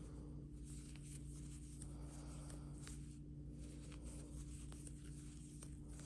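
Faint rustling of yarn and light scraping of a crochet hook as stitches are worked, with a few soft ticks, over a steady low hum.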